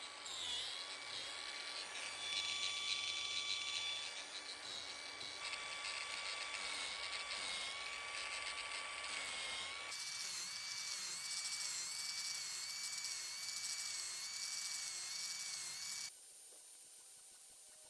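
Handheld electric power-carving tool working a wooden bench leg: a steady high motor whine. About ten seconds in it changes to a different whine whose pitch dips and recovers under load, and it cuts off abruptly shortly before the end.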